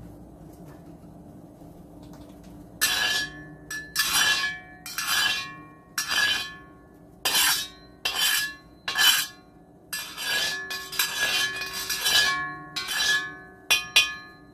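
Metal wok spatula scraping and striking around the inside of a hot black wok, in about fifteen quick strokes that start about three seconds in, each with a brief bright metallic ring.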